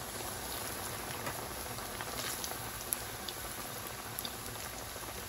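Hot oil sizzling and bubbling steadily around bread rolls frying in a pan, with a few light clicks.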